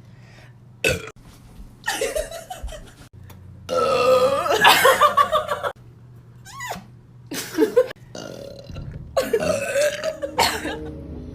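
A string of separate human burps, about half a dozen, one after another. The longest and loudest is a drawn-out belch of about two seconds, about four seconds in; the others are shorter.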